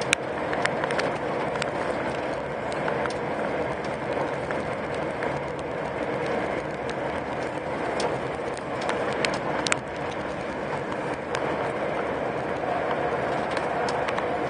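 Lorry driving at motorway speed, heard from inside the cab: a steady drone of engine and tyre noise, with scattered short clicks and ticks, a few close together about eight to ten seconds in.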